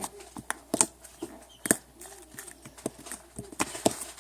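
Package contents being handled by hand, giving irregular sharp clicks and taps, about six over a few seconds.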